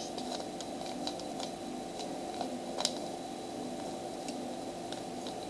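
Plastic Rubik's Cube being turned by hand: scattered short clicks of its layers turning, the sharpest almost three seconds in, over a steady background hum.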